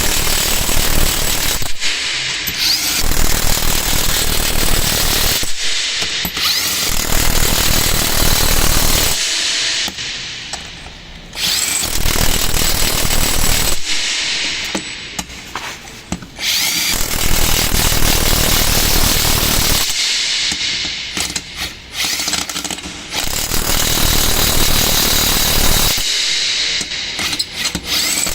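Makita TW001G 40V cordless high-torque impact wrench hammering in repeated runs of a few seconds each, with short pauses between them.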